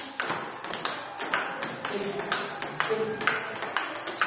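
Table tennis balls in a fast multiball drill: quick, regular clicks of the ball striking the paddles and bouncing on the table, about three a second.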